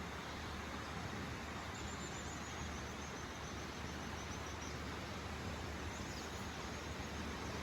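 Steady rush of river water, with a high, rapid insect trill twice: a long run early in the middle and a shorter one near the end.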